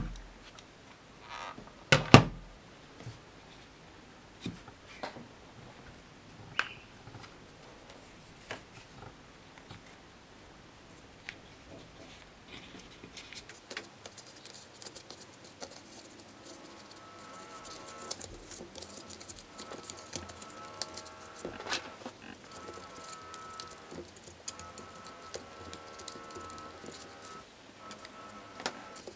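Hard plastic parts of a Dyson DC62 vacuum being handled and taken apart: a loud knock about 2 s in, then scattered clicks and taps. From about halfway, quiet background music with sustained notes comes in under the small clicks.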